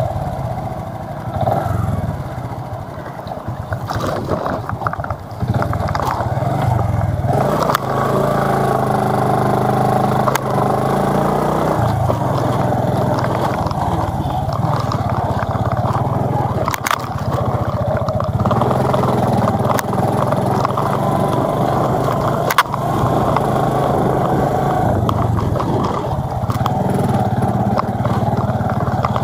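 A motor scooter passes close by at the start. Then a motor vehicle's engine runs steadily while travelling along a rough dirt road, with two sharp knocks in the second half.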